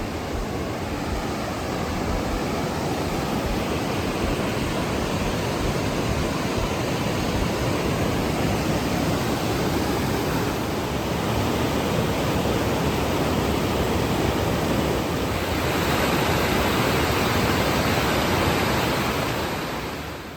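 Rushing water, a steady full roar of a river or waterfall, growing a little louder about three-quarters of the way in, then fading out at the end.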